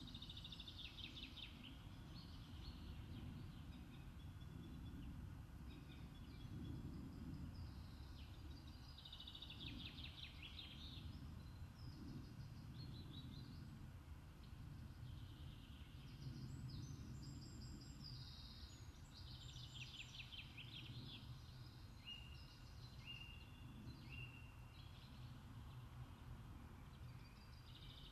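Faint songbird song: short trilling phrases that recur every few seconds, over a steady low rumble.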